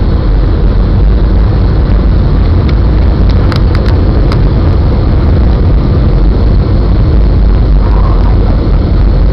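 Loud, steady cabin noise of a Boeing 757's twin-turbofan airliner on approach, heard from a window seat beside the wing: engine and airflow noise with the flaps extended, heaviest in the low end. A few light clicks come about three to four seconds in.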